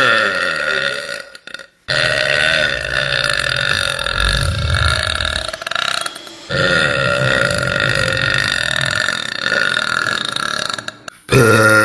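A woman's deliberate, drawn-out burps. Two long belches last about four seconds each, after the tail of one at the start, and another begins just before the end.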